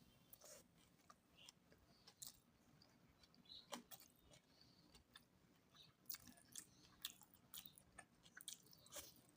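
A person chewing food close to the microphone, faint, with irregular small wet clicks and smacks of the mouth.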